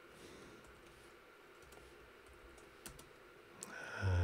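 A few faint keystrokes on a computer keyboard over a low, steady room hiss; a man's voice starts loudly right at the end.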